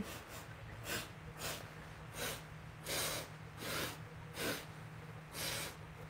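A woman's nose puffing short breaths into a tissue held over it, about seven in a row at roughly one a second: light sniffs and small nose blows, with little mucus to clear.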